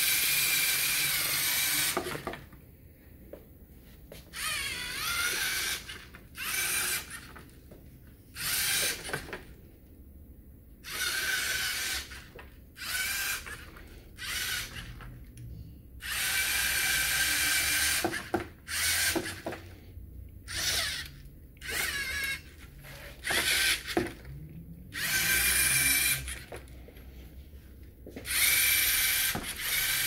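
LEGO Mindstorms NXT servo motors whining in repeated bursts of half a second to two seconds, starting and stopping over and over as the robot car is driven in short moves by remote control.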